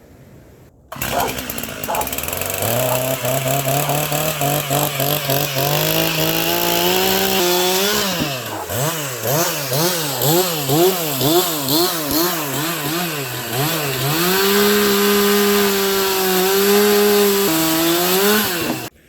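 Gas chainsaw running. Its pitch climbs and holds, then swings rapidly up and down for several seconds before holding steady at a higher pitch. It stops abruptly just before the end.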